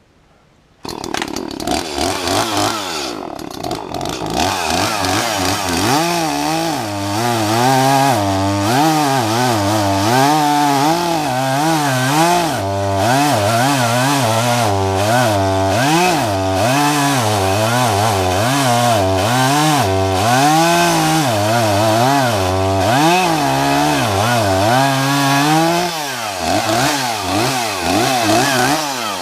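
Two-stroke chainsaw starting about a second in and running throughout, its engine pitch rising and falling over and over as it is throttled while cutting into a tree.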